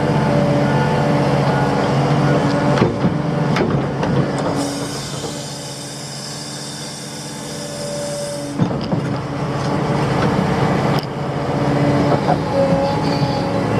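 Excavator's diesel engine running steadily, with a few metallic knocks and clanks. About halfway through, the engine eases off and a hiss lasts for a few seconds.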